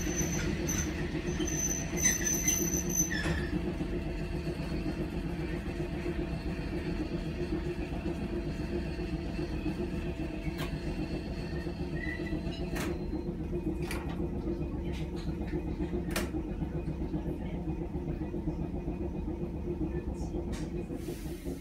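Fukui Railway 200-series tram running on street track, heard from inside the car: a steady low rumble of motors and wheels. A thin high whine fades out about three seconds in, and a few sharp clicks come in the second half.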